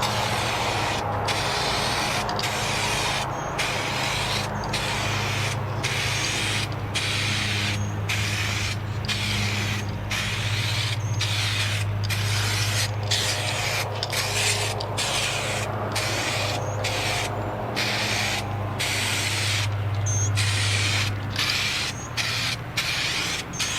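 Aerosol can of 2K clear coat spraying a wheel rim in a long run of short passes: a steady hiss with brief breaks about once a second, over a constant low hum.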